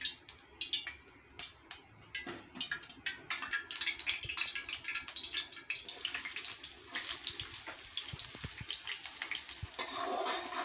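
Hot cooking oil in a karahi crackling and popping, building into a dense sizzle as sliced onions fry in it and are stirred.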